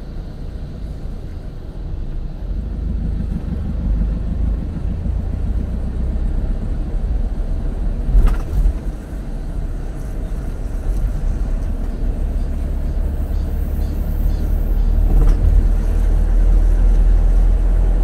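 Car road noise heard from inside the cabin while driving: a steady low rumble of engine and tyres that grows louder as the car gathers speed, with two brief thumps, one about halfway through and one later.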